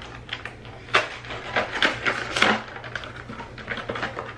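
A cardboard First Response pregnancy test box is being opened and handled by hand: a few crisp rustles and clicks, the loudest about a second in and again about two and a half seconds in, over a steady low hum.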